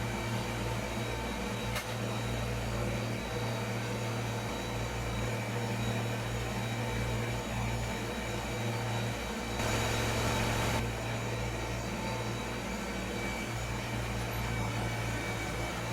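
Kubota BX compact tractor's diesel engine running steadily, with a brief louder rush of noise lasting about a second near the middle.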